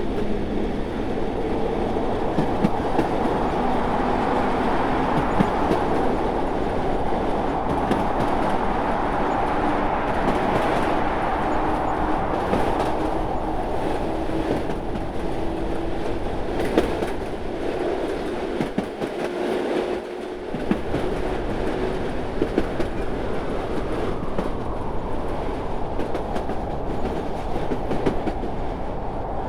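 A train running along the rails: a steady rumble with frequent clicks of the wheels over the track, and a faint hum that slowly rises in pitch.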